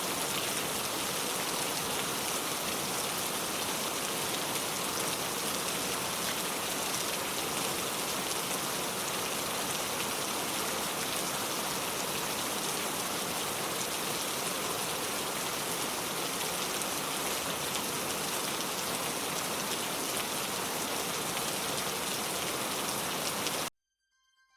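Steady rain falling, an even hiss of drops, which cuts off abruptly near the end.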